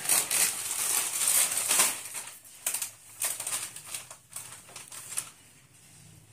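Plastic chips packet crinkling as it is handled: dense rustling for about two seconds, then a few scattered crackles that die away about five seconds in.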